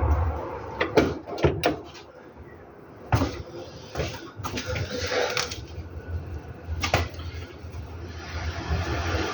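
Irregular sharp knocks and clatters: several close together about a second in, then single ones around three, four and seven seconds in, over a steady low hum.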